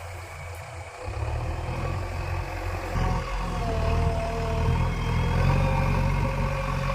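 A JCB 3DX backhoe loader's 49 hp diesel engine running and working hard under load. It grows louder about a second in and again around three seconds, when a thin whine comes in over the rumble.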